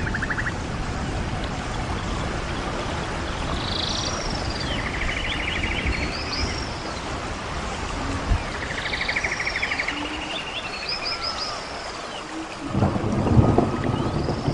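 Nature-sound soundscape: a steady rain-like hiss with high chirping calls and short even trills coming back every few seconds. Near the end there is a louder stretch of low rumbling and knocks.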